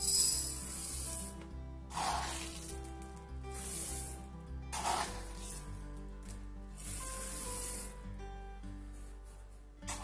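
Dry rice grains poured from a paper cup into an empty clay pot in several short pours, a sandy rushing hiss of grains landing, over soft background music.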